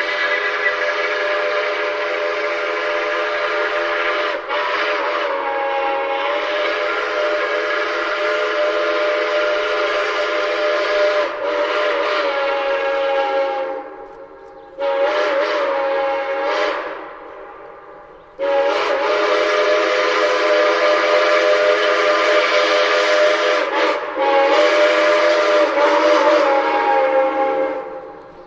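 Steam locomotive DT668's whistle blowing a steady chord in three long blasts: one of about fourteen seconds, a short one of about two seconds, then another of about ten seconds.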